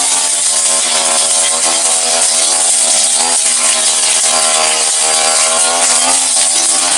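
Brush cutter engine running at high speed while its blade cuts grass down to the ground, the engine note dipping briefly several times as the blade takes load.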